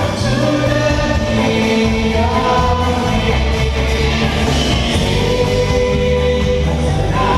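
Loud live band music with singing over a heavy bass line.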